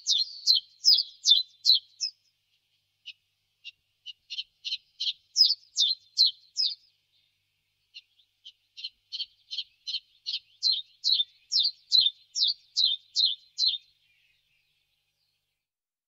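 Common chiffchaff singing its chiff-chaff song: three phrases of evenly repeated high, sharp notes, each several seconds long, separated by short pauses.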